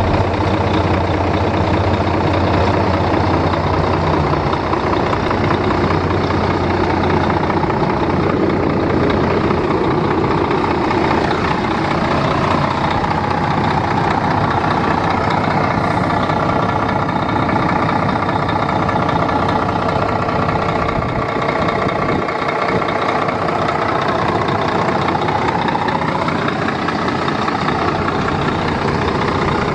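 Diesel engine of a Volvo FH truck idling steadily.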